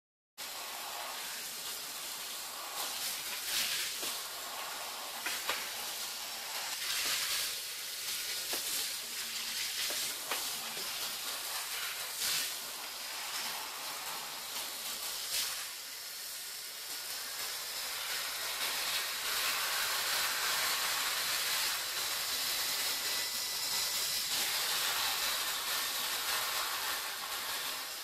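Water spraying from a hand-held shower head onto a bathtub floor: a steady hiss of falling water with scattered louder splashes.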